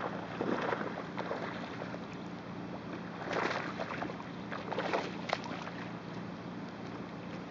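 Water splashing at a pond's surface just off the bank where a fishing line is being worked in, in a few short bursts, the loudest about three and a half seconds in. A low steady hum runs underneath.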